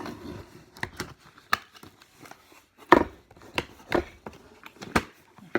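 Irregular sharp clicks and knocks, about nine of them, with the loudest about three seconds in, as a boxed espresso cup set in its carry case is handled and opened.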